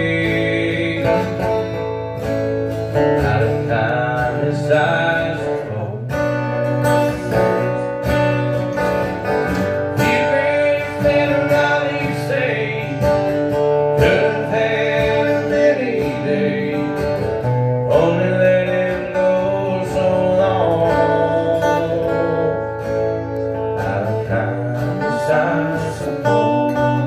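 Two acoustic guitars played live, strummed chords with a picked melody line over them, in an instrumental stretch of a country song.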